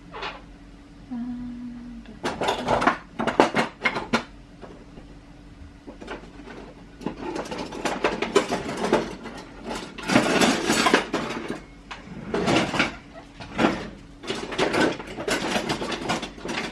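Kitchen utensils clattering: irregular runs of knocks and rattles of cutlery and crockery being handled.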